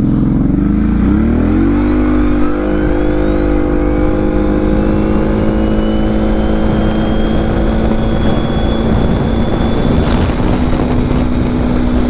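Kawasaki KFX 700 V-Force quad's V-twin engine accelerating hard: its pitch climbs steeply over the first two seconds, then holds nearly steady with a slow rise while road speed keeps climbing, as a belt CVT does. It runs through a newly fitted aftermarket exhaust.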